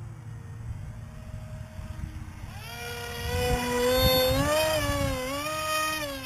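Electric motor and propeller of a foam RC F-35 model jet whining as it makes a low pass. The whine swells in about two and a half seconds in, is loudest around four seconds, wavers up and down in pitch, and drops away near the end, over a low rumble.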